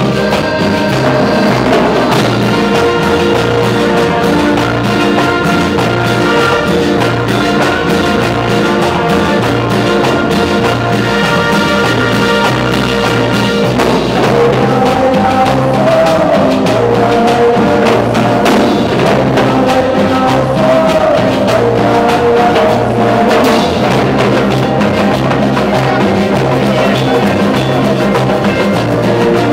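Live cumbia band playing, with accordions over a bouncing bass line and drums. The melody changes about halfway through.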